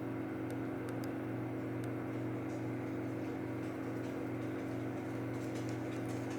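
Steady low electrical or mechanical hum of room equipment, with a few faint, light clicks scattered through it.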